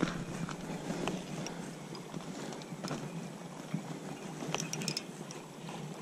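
Faint, irregular clicks and crunches from an angler fighting a salmon: steps on a gravel river bank and handling of a baitcasting reel, over a steady hiss of river water.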